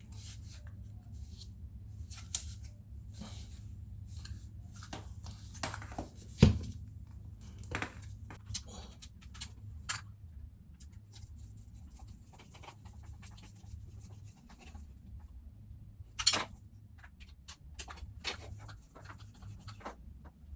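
Handling noise from a Samsung washer drain pump motor being fitted into its pump casing: scattered clicks, taps and scrapes, with a sharp knock about six seconds in and another about three-quarters of the way through, over a steady low hum.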